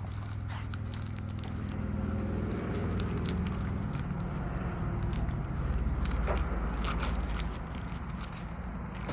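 Light crackling and scattered clicks from a fresh syringe needle and its plastic packaging being handled, over a low rumble that grows louder in the middle and then eases off.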